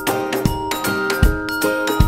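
Background music: a light tune of chiming pitched notes over a steady beat.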